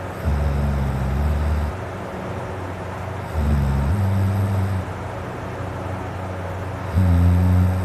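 A man snoring deeply in his sleep: three low snores about three and a half seconds apart, each lasting over a second, over a steady background hiss.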